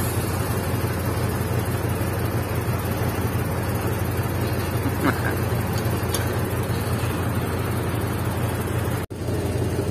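Diesel engine of a Case wheel loader running steadily under load as it lifts and tips a bucket of sand into a dump truck. The sound drops out for an instant near the end.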